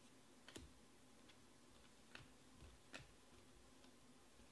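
Near silence with a handful of faint ticks as stiff, glossy Panini Prizm baseball cards are handled and slid against one another. The clearest tick comes about three seconds in.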